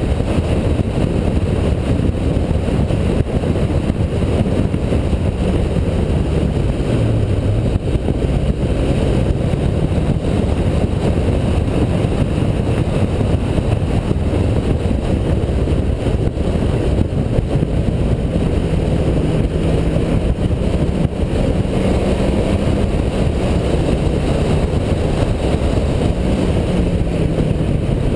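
Car engine pulling hard around a race track at lap pace, its note dropping sharply about seven seconds in and climbing again, rising and falling with throttle and gear changes, under a dense rumble of wind and road noise.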